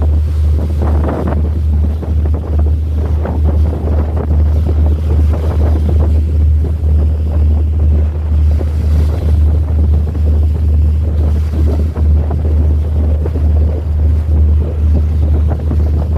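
Wind buffeting the microphone in a steady low rumble, over the wash of sea water.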